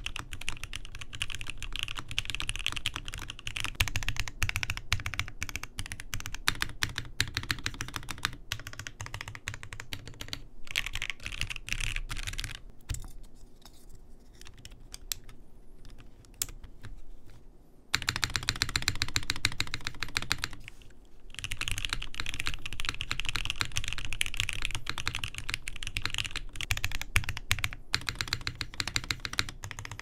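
Typing on a KBDfans Taco75 mechanical keyboard: lubed and filmed Gateron Uhmknown switches in a top-mounted polycarbonate plate with no foam, under GMK Minimal keycaps. Fast, even key presses, thinning out about halfway through to sparser spacebar presses on a swapped-in long-pole spacebar before full typing resumes.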